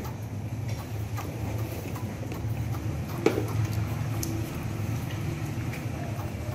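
Baby monkeys sucking milk from feeding bottles: scattered small clicks and smacks from the bottle nipples, with one louder click about three seconds in, over a steady low hum.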